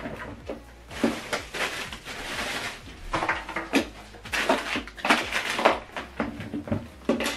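Unboxing handling noises: plastic wrapping rustling and crinkling in irregular bursts, with light knocks of accessories and packaging being moved on a tabletop.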